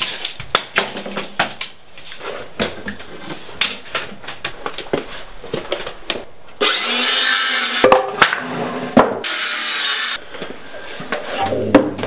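Irregular knocks and clicks of hand tools and boards being handled, then two short, loud bursts of a cordless circular saw cutting wood, each a second or two long and starting and stopping abruptly.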